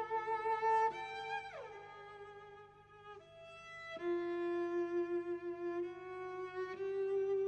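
Slow violin music: long held notes, with a downward slide about a second and a half in, a quieter stretch, then held notes again.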